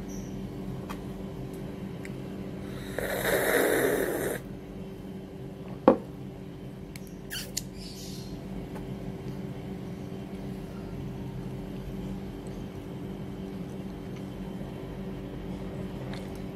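Close sounds of someone eating a soft bread roll over a steady low hum: a rough breathy, chewing noise about three seconds in, a sharp click near six seconds, and a few small ticks soon after.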